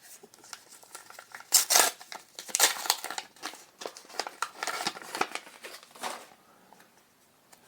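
Foil Star Wars Unlimited booster pack wrapper being opened and crinkled, with the cards inside handled and slid out, in a series of short rustling bursts that stop about six seconds in.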